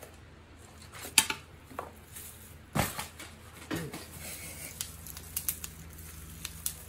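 Small threaded metal parts clinking inside a plastic bag as it is handled and set down on a wooden table: a few sharp knocks, the loudest about a second and nearly three seconds in, then a run of light ticks near the end.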